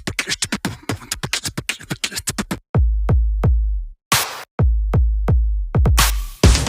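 Electronic background music: a fast roll of drum-machine hits, then heavy deep bass booms with hi-hat hits, and the full beat back near the end.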